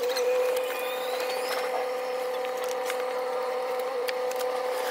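A steady, even-pitched mechanical whine from a running motor, with a few faint clicks and knocks.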